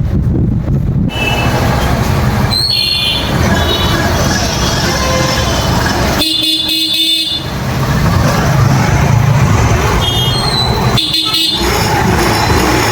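Freshly rebuilt Yamaha Fascino 125 scooter engine running steadily after start-up, mixed with a vehicle horn honking three times, about 3 s, 6 s and 10 s in.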